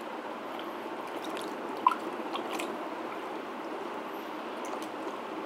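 Water swishing and swirling in a plastic bucket as salt mix is stirred in by hand with a plastic cup, with a few faint drips and one short tick about two seconds in.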